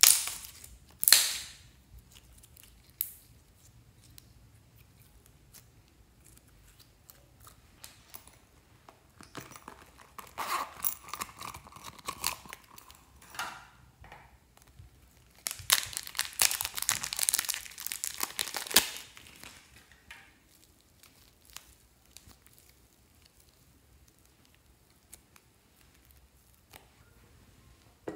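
Two sharp wet squelches from green glitter slime being stretched and pulled apart by hand, then a small plastic zip-lock bag of pink clay crinkling and rustling as it is handled, in two spells, the second louder and longer.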